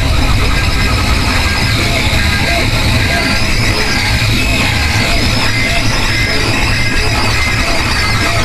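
Harsh noise music: a dense, unbroken wall of noise with a heavy low rumble and thin high tones wavering above it.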